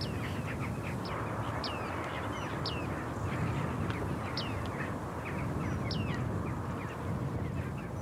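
Bearded tits calling in a reed bed: many short, high call notes, each dropping slightly in pitch, scattered irregularly over a steady background hiss.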